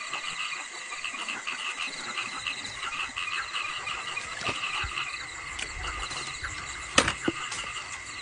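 Chorus of frogs and insects calling in a rice field after rain: many rapid pulsed calls repeating over a steady high trill. A sharp knock about seven seconds in, then a smaller one just after.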